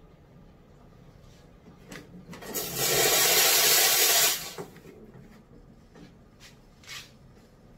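Nuova Simonelli Oscar espresso machine's steam wand being purged: a loud hiss of steam starts about two and a half seconds in and stops sharply about two seconds later as the steam knob is opened and closed. A few light knocks from the knob and wand being handled come before and after.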